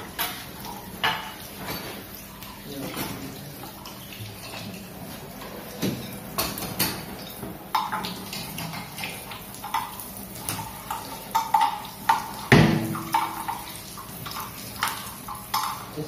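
Irregular metallic clinks and knocks of an adjustable wrench and hands working on a chrome wall-mounted kitchen sink mixer while its nuts are tightened onto the wall fittings, with one sharper, louder knock about twelve seconds in.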